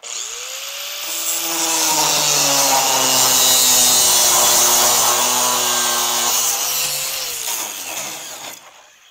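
Corded angle grinder switched on and trimming the end of a steel tube, a loud grinding hiss over the motor's whine. The motor's pitch drops as the disc bites into the metal and rises again when it comes off about seven seconds in; then the grinder is switched off and winds down near the end.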